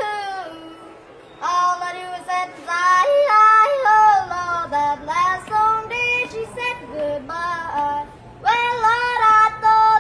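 A man's singing voice pitched up digitally so that it sounds high and childlike, in sung phrases with held and sliding notes and a couple of short pauses.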